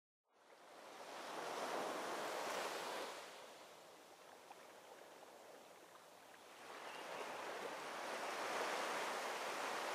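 Sea surf: the rush of waves washing onto a beach, fading in at the start, swelling about two seconds in, easing off, then swelling again about seven seconds in.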